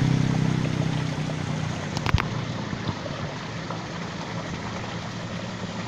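Water of a small stone-lined stream rushing and splashing steadily. A low engine hum fades out over the first second or so, and two or three sharp clicks come about two seconds in.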